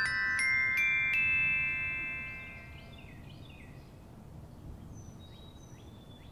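A run of bell-like chime notes, about four struck in quick succession and climbing in pitch, ringing out and fading over the first couple of seconds. Faint bird chirps follow.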